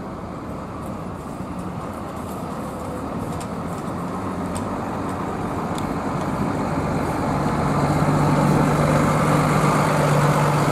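Intercity coach's diesel engine running as the bus pulls slowly past close by, growing steadily louder, with a steady low engine drone coming in about seven seconds in.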